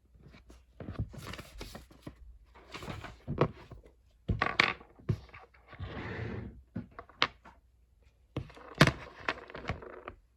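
A woman coughing in short bouts of sharp, harsh coughs, with breathy inhales between them. It is a lingering cough with heavy breathing that she puts down to throat tickles she can't shake.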